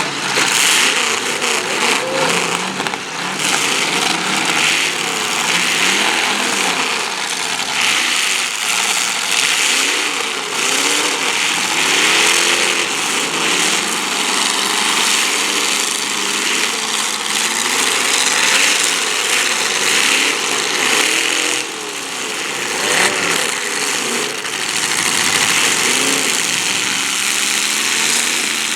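Several demolition derby cars' engines revving up and down over and over, overlapping each other, with scattered knocks among them.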